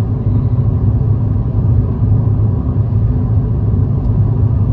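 A car driving, its engine and tyres making a steady low rumble.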